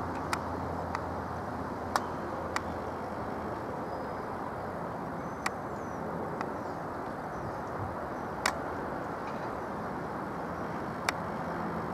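Steady distant drone of a Luxair Dash 8 Q400 turboprop climbing out overhead. About eight sharp clicks sound at irregular intervals over it.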